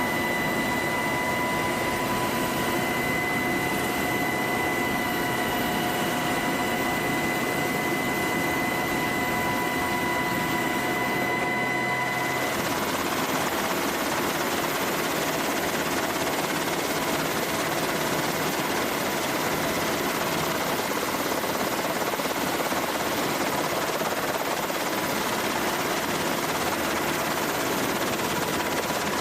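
Helicopter running steadily: a continuous rush of rotor and engine noise with a high turbine whine, which changes character abruptly about twelve seconds in.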